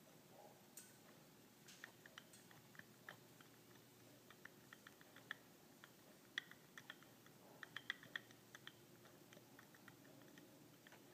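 Faint, irregular light clicks and ticks over near silence, bunching into quick runs around six to eight seconds in.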